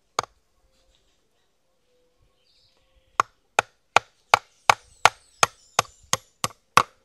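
Claw hammer driving nails into wood, fixing a wooden spout to a wooden post: one blow just after the start, then after a pause a steady run of about three blows a second.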